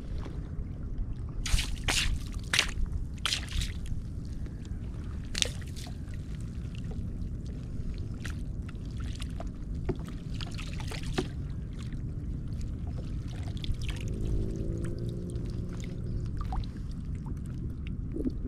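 Water splashing and trickling around a kayak, with several sharp clicks and knocks in the first few seconds over a steady low rumble.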